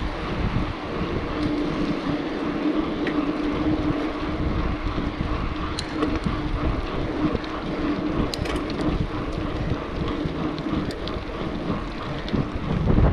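Wind buffeting the microphone of a camera on a mountain bike, mixed with the rumble of the tyres rolling on asphalt and a steady hum. A few light clicks and rattles from the bike come through about halfway and again later.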